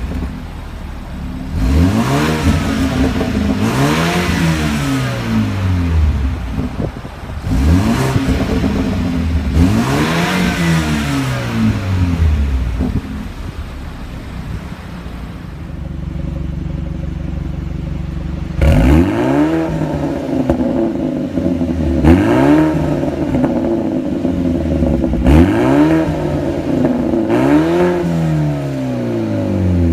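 BMW 428i's turbocharged N20 four-cylinder engine revved repeatedly while parked, each blip rising and falling in pitch, with a steady idle in between. First it runs through the stock exhaust. From about halfway it runs through an M Performance cat-back exhaust, which gives a series of five quick, slightly louder blips.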